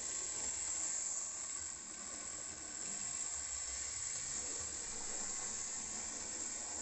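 Small electric motor of an HO-scale Piko BR64 model tank locomotive whirring faintly as it runs light along the track, under a steady hiss.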